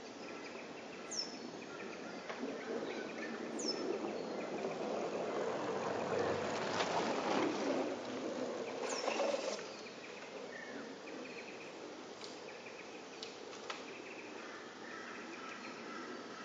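Outdoor insect buzz, with faint steady high trilling in the background. Three short, thin, high bird calls sweep downward, about a second, three and a half seconds and nine seconds in. A broad noise swells up through the middle and dies away about ten seconds in.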